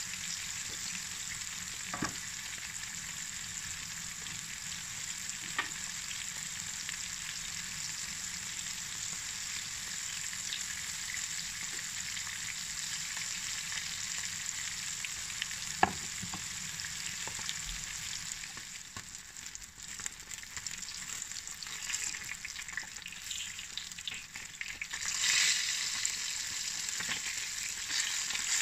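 Flour-dusted sardines shallow-frying in hot oil in a frying pan, a steady sizzle. A few sharp clicks of a spatula against the pan, and near the end the sizzle surges louder as the fish are turned over.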